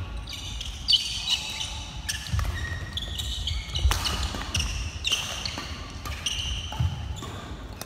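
Badminton rally: several sharp racket-on-shuttlecock hits spaced a second or more apart, with shoes squeaking and feet thudding on the wooden court floor.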